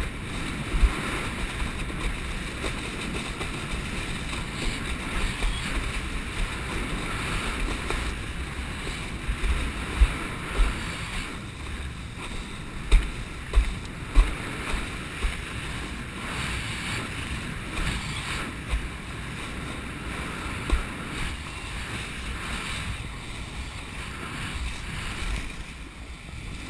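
Seawater rushing and hissing steadily past the nose of a board riding an ocean swell, with wind buffeting the microphone. Short low thumps come every few seconds, thickest around the middle.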